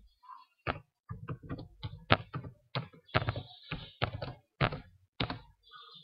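Computer keyboard being typed on: a run of about fifteen irregularly spaced keystrokes as a password is entered.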